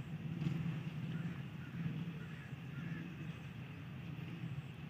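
Low, steady engine drone, with no clear rise or fall.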